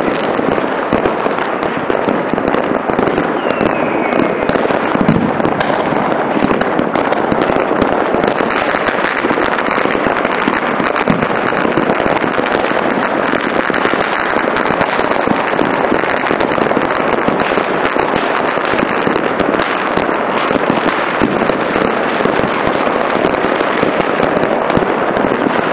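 Fireworks and firecrackers going off all over a city at once: a dense, unbroken crackle of countless overlapping bangs. A short falling whistle comes about three seconds in.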